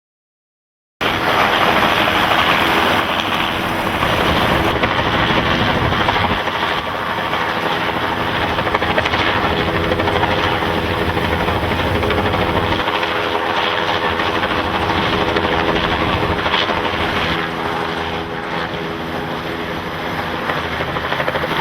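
Steady, loud engine drone with a constant hum, starting suddenly about a second in.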